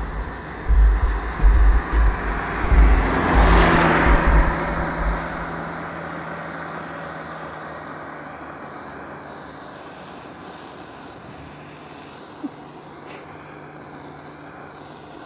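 Handheld butane crème brûlée torch hissing steadily as its flame plays on a plastic part. The hiss is loudest about four seconds in and then slowly fades. Wind buffets the microphone over the first few seconds.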